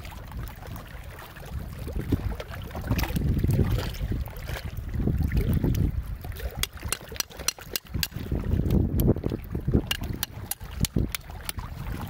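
Metal hook clicking and scraping against a clump of oyster shells as they are pried open, with many sharp clicks, thickest in the second half. A low rumble of wind on the microphone runs underneath.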